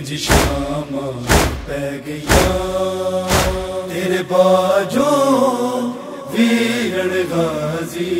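Voices chanting a long, drawn-out line of a noha lament, the pitch sliding up and down. A deep thump falls about once a second under the voices and stops about three and a half seconds in.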